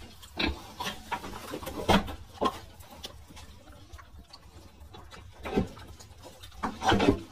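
Domestic pig making short grunts and snuffling mouth noises at food held to its snout, about five separate sounds with pauses between them.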